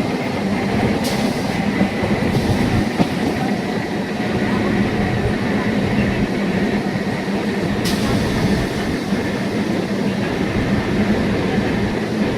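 MEMU electric local train running on the line: a steady rumble with a steady electric hum, and two brief sharp clicks, about a second in and near eight seconds.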